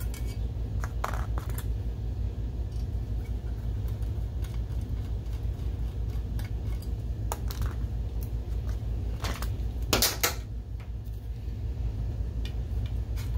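Small screwdriver working screws out of the sheet-metal housing of a projector lamp module, with scattered metal clicks and clinks, the loudest pair about ten seconds in. A steady low hum runs underneath.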